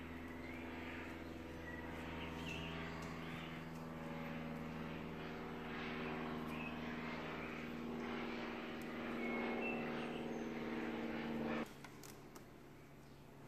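A steady machine-like hum holding one pitch with many overtones, with faint rustling and a few short high chirps over it; the hum cuts off abruptly near the end.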